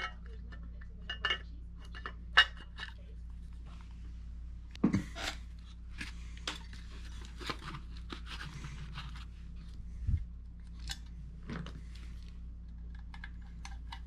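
Clicks, knocks and clinks of a Lionel 671 turbine model locomotive's body shell and chassis being handled and fitted together, the sharpest knock about two and a half seconds in, with a stretch of scraping in the middle.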